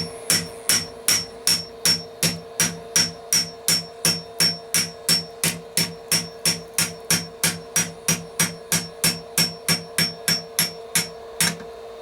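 Blacksmith's hand hammer striking hot iron on the anvil while forging nails, an even run of ringing blows, nearly three a second, that stops near the end.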